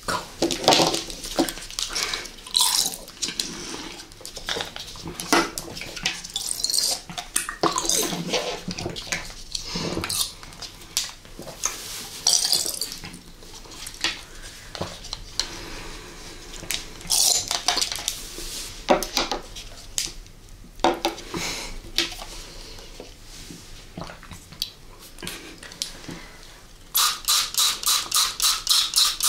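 Wet slurping, squishing and sucking as jelly is squeezed out of plastic syringes and eaten, with plastic clicks from the syringes. Near the end, a rapid run of short hissing squirts, about five a second, from the pump of a sour candy spray.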